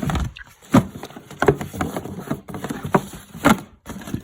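A run of irregular wooden knocks and clatters, as of things being moved about and bumped while searching, with the sharpest hits a little under a second in, at about a second and a half, and at about three and a half seconds.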